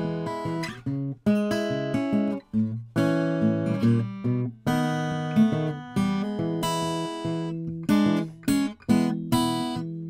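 Eastman E10-00 acoustic guitar, a 12-fret 00 with an Adirondack spruce top and mahogany back and sides, being fingerpicked: single plucked notes over bass strings that ring and die away, with a few short breaks where the strings are stopped.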